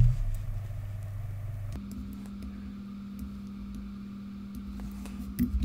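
Steady low electrical hum of the recording's room tone. Its pitch steps up about two seconds in, and a few faint clicks sound over it.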